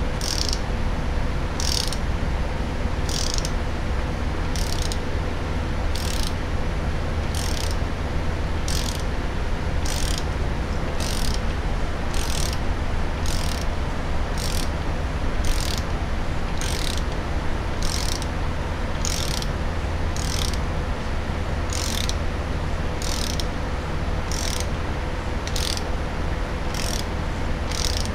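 Socket ratchet clicking in short bursts a little under a second apart as it turns a tapered pipe-thread tap into the aluminium transmission case, with a steady low hum underneath.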